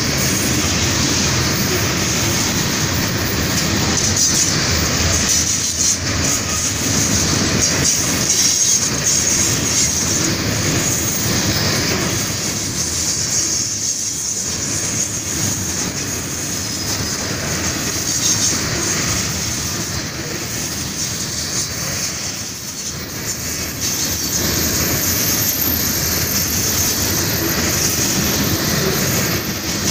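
Train of covered hopper cars rolling past, steel wheels clattering over the rail joints, with a steady high-pitched squeal from the wheels.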